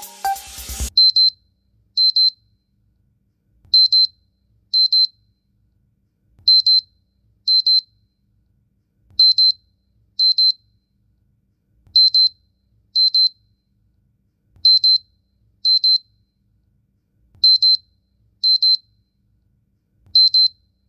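Xiaomi Redmi Note 10 alarm ringing: high electronic beeps in pairs about a second apart, each beep a quick double pulse, the pair repeating about every three seconds.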